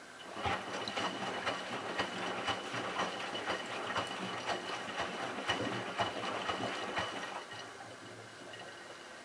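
Miele Touchtronic W3033 front-loading washer on its delicate cycle: the drum starts turning about half a second in, with water and suds sloshing and a steady motor whine. The drum stops about seven and a half seconds in, leaving a faint hiss.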